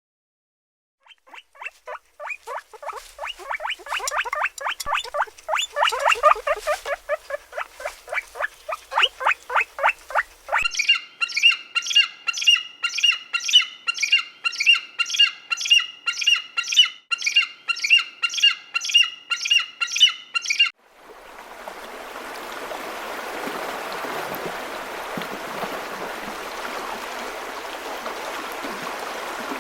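Rapid, repeated animal calls: first a fast chatter of many short calls a second, then a steadier series of about two harsh calls a second. The calls stop abruptly and give way to the steady rush of running water.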